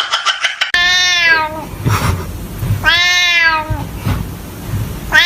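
A domestic cat meowing: two long, drawn-out meows about two seconds apart, each dropping in pitch as it ends, with a third beginning near the end. It opens with a brief run of rapid ticking under a rising cry.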